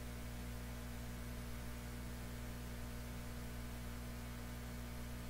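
Steady low electrical mains hum with a faint hiss behind it.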